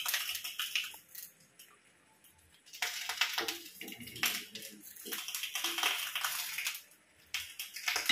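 Banana leaf wrapper being handled and folded over cooked fish on a steel plate: crinkling rustles with small sharp clicks, in bursts, with a quiet gap about a second in.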